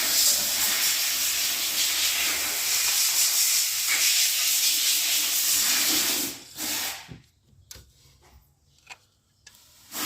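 A steady hiss, like air or spray under pressure, that stops about six seconds in. It comes back briefly, then gives way to a few faint clicks and starts again at the very end.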